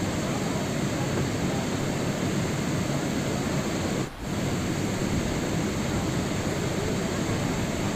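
Steady rain, a dense even hiss. The sound dips out briefly about four seconds in, then returns unchanged.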